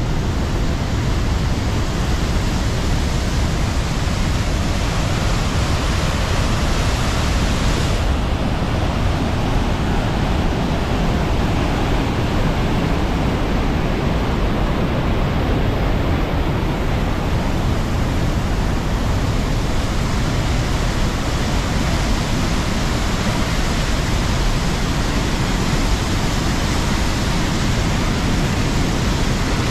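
Large waterfall rushing over boulders: a loud, steady rush of white water.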